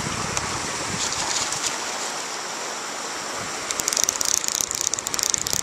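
River water rushing steadily, with a fly reel's ratchet clicking in a few short ticks about a second in, then rapidly over the last two seconds as line moves with a small salmon hooked.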